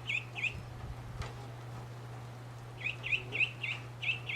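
Cayuga duckling peeping: short, high chirps in little runs, two at the start, four about three seconds in and two near the end, over a steady low hum.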